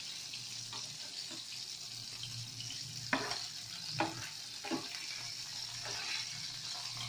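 Seer fish steaks sizzling as they shallow-fry in oil in a pan, a steady hiss. A spatula clicks lightly against the pan and plate three times, about three, four and nearly five seconds in.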